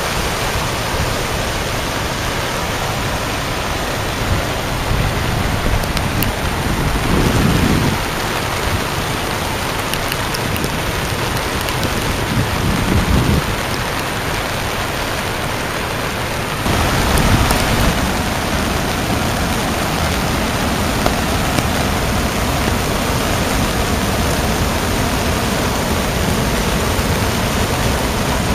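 Steady rushing of storm floodwater pouring across and over the edge of a road, mixed with rain. The noise changes abruptly about seven and about seventeen seconds in, with stretches of heavier low rumbling.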